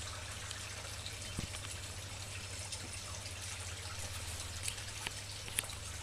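Water trickling steadily through an aquaponics system, with a few faint drips.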